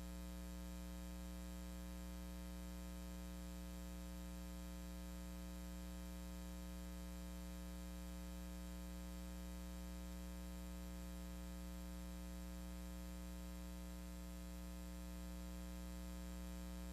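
Steady low electrical mains hum with a faint hiss, unchanging.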